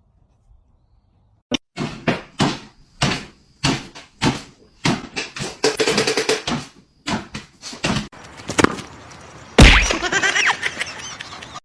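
A run of sharp knocks and bangs, about two a second at first and then coming faster, with one heavy thump near the end.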